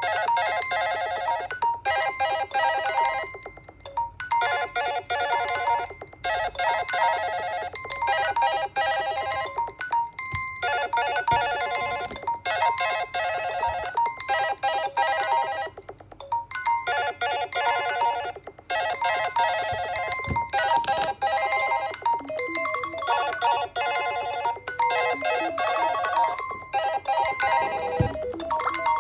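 Smartphone alarm tone: a bright electronic melody of ringing notes played over and over in bursts of a second or three, each separated by a short gap.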